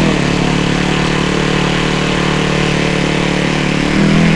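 Motor of a radio-controlled model Cessna airplane running at a steady speed, a steady buzzing drone; near the end its speed and loudness lift briefly.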